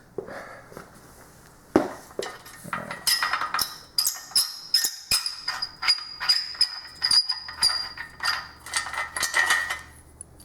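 Metal clinking and knocking from an engine hoist's boom being worked loose for removal, with a thin high squeak of metal on metal through the middle.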